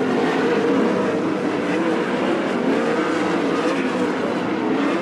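Several 410 sprint cars' 410-cubic-inch V8 engines racing together in a steady, blended engine noise, their pitches rising and falling slightly as the cars lap the dirt oval.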